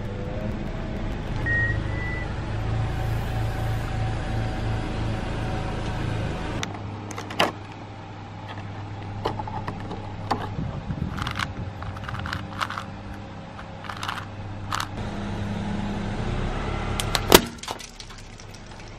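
A car's engine running at low speed. Then a plastic toy box is handled and opened with a run of sharp clicks and crinkles. The car's engine comes back, and near the end the tyre crushes a Rubik's cube with one loud crack.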